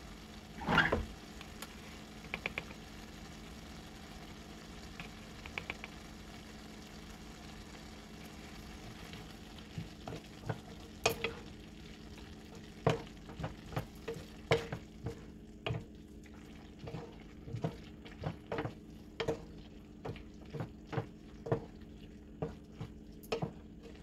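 Wooden spatula stirring yogurt into a simmering chicken curry in a frying pan, knocking and scraping against the pan in irregular strokes, thickest from about ten seconds in, over a steady low sizzle from the pan. A single louder knock comes about a second in.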